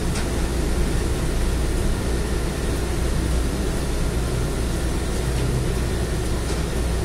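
A transit bus's engine and road noise heard inside the passenger cabin while it drives: a steady low rumble with a few faint clicks.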